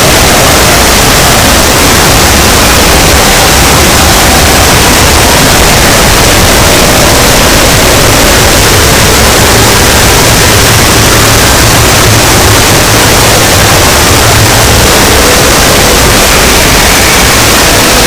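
Extremely loud, heavily clipped and distorted noise, like blaring static, filling every pitch without a break; any sound effect underneath is buried, with only faint tones showing through.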